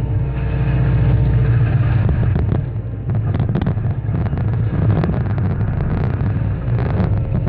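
Excavator diesel engine running steadily under hydraulic load while a Cat MP318 multi-processor jaw crushes reinforced concrete. A held tone in the first couple of seconds gives way to repeated sharp cracks and knocks as the concrete breaks.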